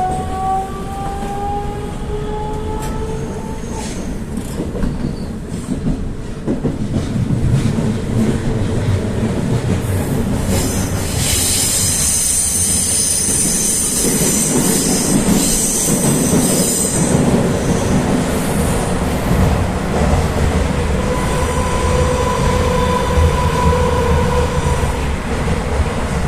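Rusich metro train running on the rails, heard from inside the car: its traction motors whine upward in pitch in the first few seconds as it accelerates, under a steady rumble of wheels on rail. A high hissing wheel squeal runs from about 11 to 17 seconds in, and a steady motor tone sounds again near the end.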